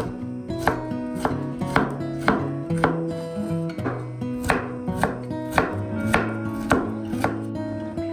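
Kitchen knife chopping on a cutting board in a steady rhythm, about two strokes a second, with acoustic guitar background music underneath.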